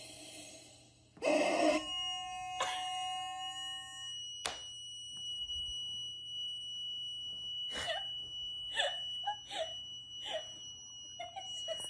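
A rubber chicken toy gives a loud squawk as it is stomped on, about a second in, followed by a steady high ringing tone that holds on, with a few knocks and a woman's laughter near the end.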